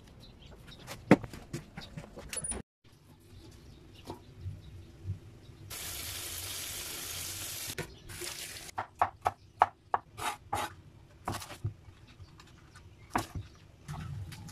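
A sharp snap with rustling about a second in as green onion stalks are handled, then a tap running steadily for about two seconds near the middle. From about nine seconds in, a kitchen knife chopping green onions on a wooden cutting board, in irregular knocks.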